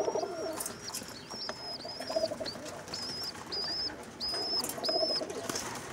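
Birmingham Roller pigeons in a loft: a run of short, thin, high peeps, about two a second, typical of young pigeons (squeakers), over low cooing from adult pigeons.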